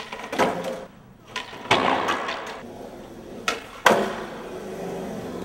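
Skateboard riding on a smooth hard floor: the wheels roll with a steady rumble, broken by several sharp clacks of the board popping and landing, the loudest a little under four seconds in.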